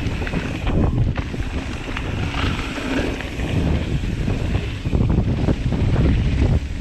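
Wind buffeting the action-camera microphone as a mountain bike descends a dirt trail at speed, over a low rumble of tyres on dirt and frequent small knocks and rattles from the bike over bumps.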